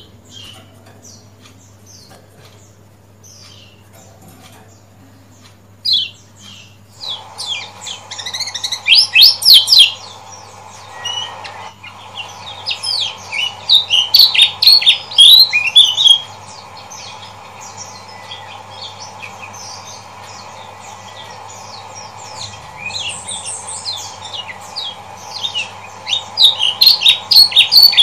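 Kecial kuning (yellow white-eye) chirping: rapid strings of high, sharp notes in three loud spells, with scattered fainter notes between them. A steady low hum runs underneath.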